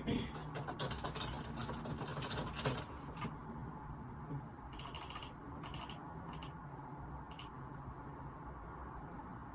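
Typing on a computer keyboard, picked up by a phone microphone: quick runs of keystrokes for the first three seconds or so, then scattered single clicks, over a steady low hum.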